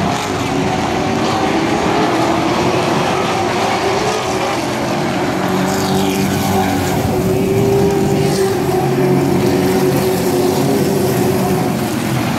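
Engines of several short-track racing trucks running hard around a paved oval. One passes close by about halfway through.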